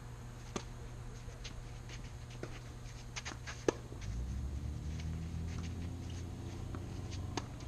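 A tennis racket strikes the ball on a serve with one sharp pop a little under four seconds in, with a few fainter ticks around it. Under it runs a low steady rumble that grows louder just after the serve.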